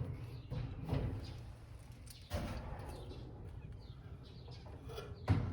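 A few scattered knocks and clunks from dryer parts being handled during teardown, the strongest about two seconds in and just before the end, with faint high chirps in the background.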